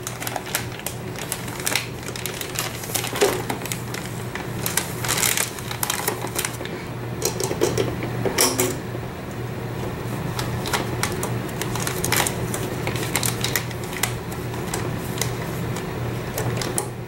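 Plastic vacuum-seal bag rustling and crinkling as it is handled into a sous vide water bath and fastened to the container's rim with a binder clip, with irregular clicks and taps throughout. Under it runs the steady hum of the immersion circulator.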